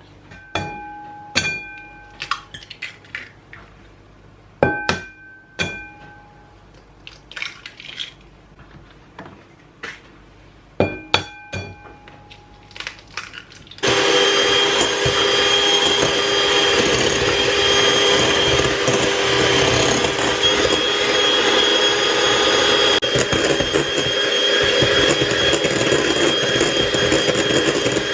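Several ringing clinks in three clusters as utensils strike a mixing bowl, then about halfway through an electric mixer switches on and runs steadily, loud and even, mixing muffin batter.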